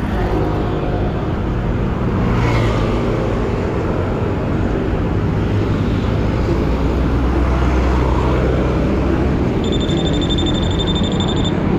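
Continuous low rumble of wind and road noise on a bike-carried action camera riding in city traffic. Near the end a steady high-pitched tone sounds for about two seconds, then again briefly.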